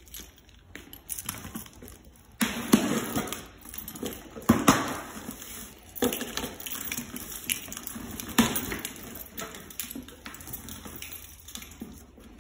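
Packing tape on a cardboard box being slit open with a key, then the cardboard flaps pulled apart: scraping, ripping and rustling of tape and cardboard, with several sharper rips along the way.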